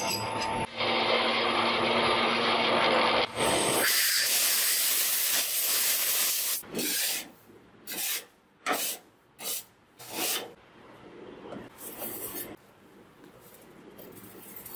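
A metal lathe cuts a steel rod, giving a steady loud noise with a high whine. About three and a half seconds in, this gives way to metal turnings being swept and scraped across a steel chip tray: a long sweep, then a run of short scraping strokes that get fainter.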